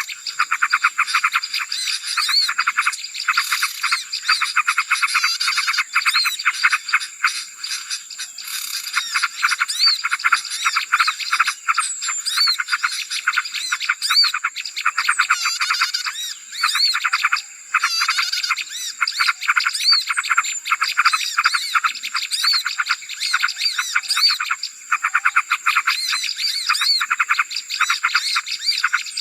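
A noisy chorus of small songbirds chirping and chattering rapidly without pause, played as a bird-trapping lure call to draw in small birds. A steady high-pitched tone runs underneath.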